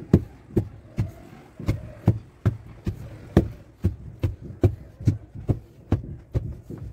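Evenly paced thuds of a long iron digging bar being driven into the floor, about two to three blows a second.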